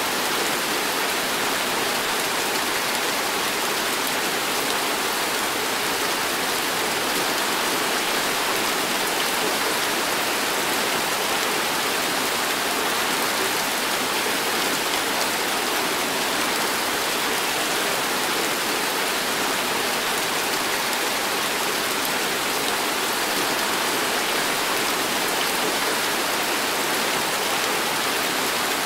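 Heavy tropical downpour: a steady, even hiss of dense rain that does not let up.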